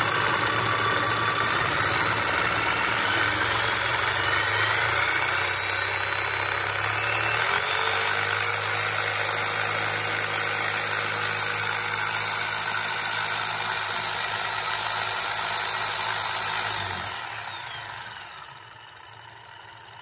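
DeWalt corded jigsaw motor running with its blade reciprocating, a steady high-pitched whir that shifts in speed about a third of the way through. Near the end the trigger is released and the motor winds down, leaving only a faint hum.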